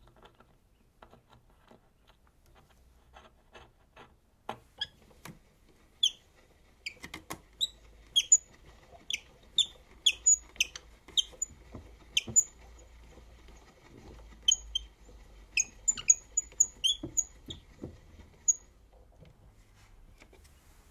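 Portable wind-up gramophone being wound by its crank handle: the spring motor's winding mechanism clicks and squeaks, irregular short squeaks one or two a second, faint at first and louder from about six seconds in, stopping a couple of seconds before the end.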